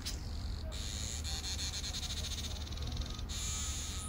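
Weaver bird giving a high-pitched buzzing chatter: a fast run of ticks that speeds up, starting under a second in and lasting about two and a half seconds.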